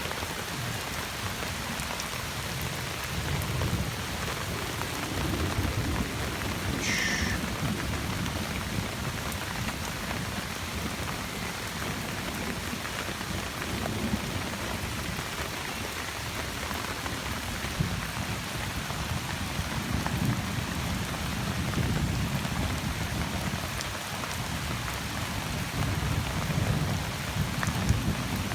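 Steady heavy rain pouring during a thunderstorm, with low rolls of thunder rumbling several times over it.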